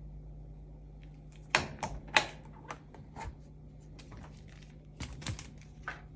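Irregular sharp clicks and short rustles from hands handling objects, starting about a second in, over a steady low electrical hum.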